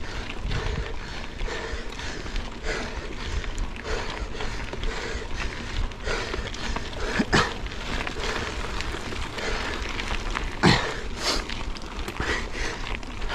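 Mountain bike rolling down a rough gravel and dirt trail: tyres crunching over loose stones, the bike rattling, and a steady low rumble, with two sharp knocks from the bike jolting over bumps, about seven and ten and a half seconds in.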